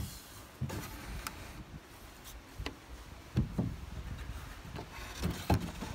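Scattered light knocks and taps of wooden chair parts being handled and lined up, a little louder twice in the second half.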